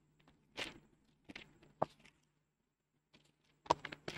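Faint, sparse clicks and rustles: a soft rustle about half a second in, a few light clicks after it, and a short cluster of clicks and rustling near the end, over a faint low hum.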